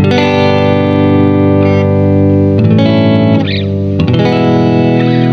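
Music: a guitar with effects playing sustained chords that change a few times.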